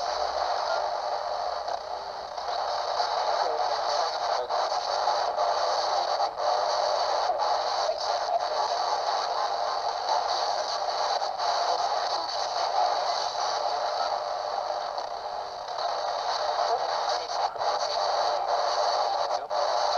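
Steady radio static hiss with a sharp click now and then, typical of a ghost-hunting spirit box sweeping through radio stations.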